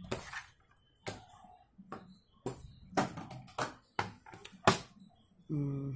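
Packaging being handled: a run of irregular sharp knocks and taps as a cardboard sleeve is slid off a tin geometry box and the tin is knocked and set on a table, with some rustling of card between.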